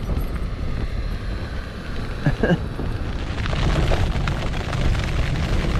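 Strong gusting wind buffeting a tent's fabric walls, heard from inside, with heavy wind rumble on the microphone.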